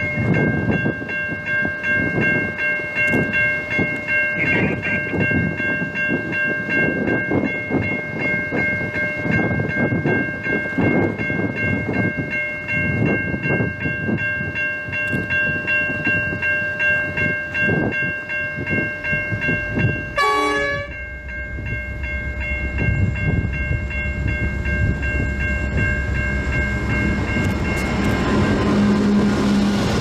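Level crossing bells ring steadily while a diesel freight train approaches, with a short falling chirp about twenty seconds in. The deep rumble of the Pacific National diesel locomotives then builds, and near the end the lead locomotive sounds its horn as it reaches the crossing.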